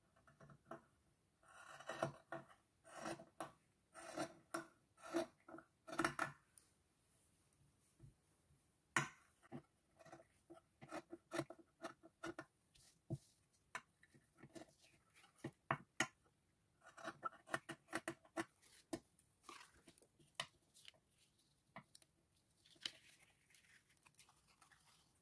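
Scissors cutting fabric in quiet short runs of snips, with pauses and single snips between them.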